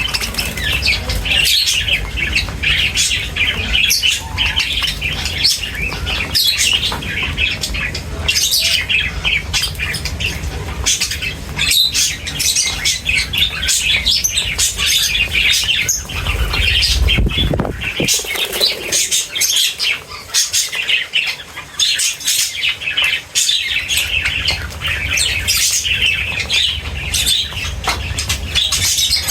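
A flock of feeding birds chirping and squawking without pause, with many short, sharp calls overlapping. A low rumble runs underneath, falls away for a few seconds past the middle, then returns.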